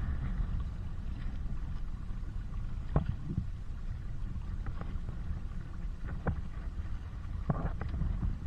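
Wind rumbling on the microphone over choppy loch water, with a few sharp slaps of waves against the side of a small boat.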